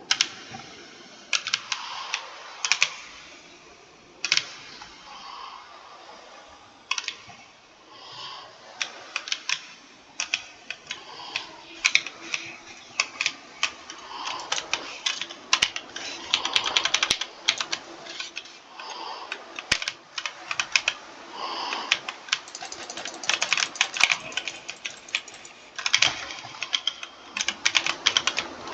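Typing on a computer keyboard: keystrokes clicking in irregular bursts of quick presses, with short pauses between runs.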